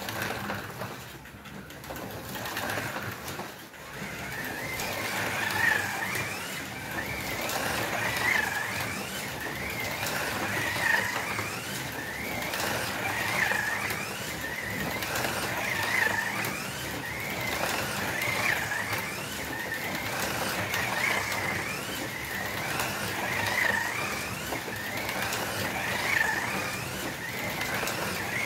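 Two stock, non-magnet slot cars, a Fly Martini Porsche 911 and a Scalextric Jägermeister Porsche 911, running on reduced power around a figure-eight slot-car track. Their small electric motors whine, rising and falling in pitch and swelling about every two and a half seconds as the cars lap. The sound is quieter at first and builds after about four seconds.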